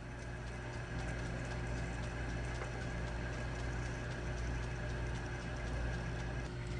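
South Bend metal lathe running steadily while a letter F twist drill in the tailstock is fed into the spinning steel bar stock, drilling the riser for tapping. The sound is a steady mechanical hum with faint gear ticking.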